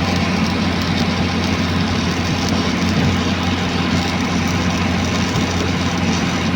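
Stick welding arc crackling and hissing steadily, with a low steady hum underneath.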